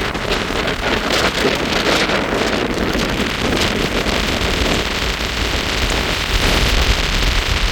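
Storm-force wind buffeting the microphone in loud, rumbling gusts, strongest near the end.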